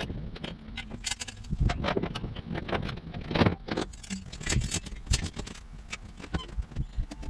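Irregular clicks, clinks and knocks of small hard objects being handled, over a low rumble.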